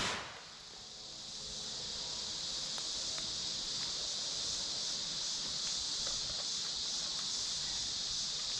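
Steady high chirring of an insect chorus. It is hushed at the start, as the echo of a .410 shotgun blast dies away, and comes back up over the next couple of seconds to an even level.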